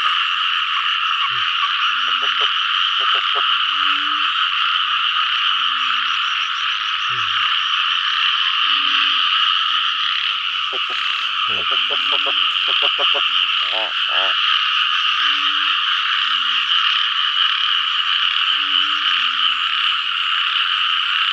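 Dense chorus of frogs calling after rain: a steady, high-pitched din with deeper short calls repeating every second or two, and a cluster of louder calls about halfway through.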